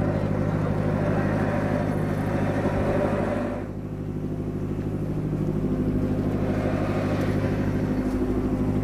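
A motor engine running steadily at a constant pitch. Its hum dips briefly about three and a half seconds in and then comes back.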